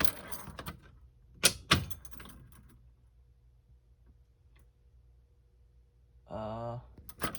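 Clatter and two sharp clacks as a manual fire alarm pull station's handle is pulled down, then quiet: no alarm sounds, because the pull station had been left unwired. A short hummed voice near the end.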